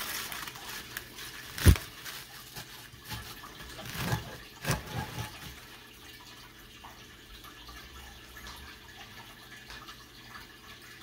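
Wet green mustard leaves rustling as hands press them down into a large glass jar, with one sharp knock about two seconds in and a few softer knocks around four to five seconds. After that only faint room noise remains.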